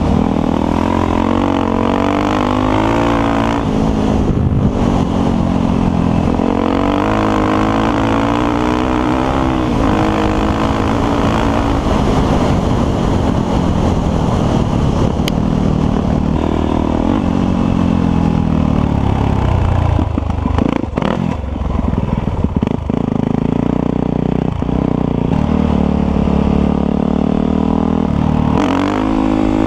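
Yamaha WR450F single-cylinder four-stroke dirt bike engine under way, heard from the rider's seat. Its pitch rises and falls again and again as the throttle is worked through the gears, with a brief drop in revs and a few knocks about two-thirds of the way through.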